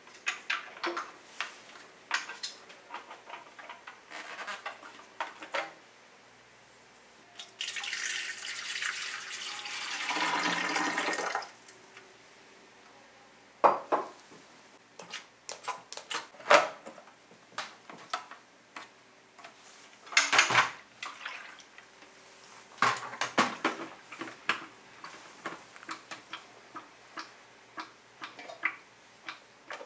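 Dishes and glassware clinking and knocking as they are handled and set down. About a quarter of the way in, water flows for about four seconds.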